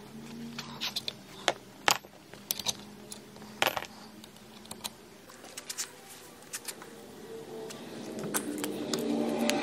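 Brass rivets and snap parts clinking and a hand setting press clicking as the hardware is fitted into leather: a string of sharp, separate metallic clicks, the loudest about two seconds and about three and a half seconds in.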